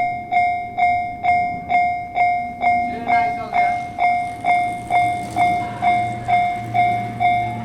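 Japanese railway level-crossing warning bell ringing, a repeated pitched clang about twice a second. A low rumble comes in near the end.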